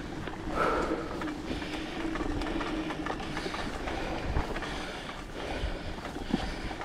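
Mountain bike riding over a trail: tyres rolling with a steady hum for the first few seconds, then the bike rattling with a few sharp knocks over bumps.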